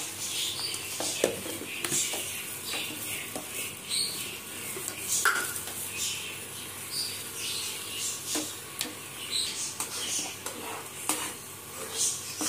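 Okra sizzling in a frying pan, with irregular clinks and scrapes of a spoon as ground spices are added on top.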